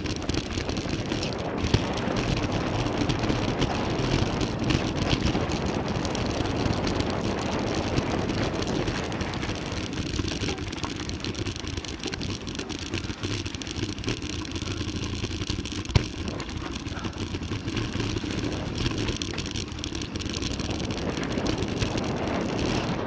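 Mountain bike riding down a trail: a steady rush of tyre and wind noise, with a few sharp knocks and rattles from the bike over bumps.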